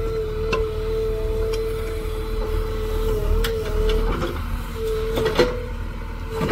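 JCB 3DX backhoe loader running, its diesel engine rumbling under a steady high whine that breaks off briefly twice, with a few sharp knocks, the loudest just after five seconds in.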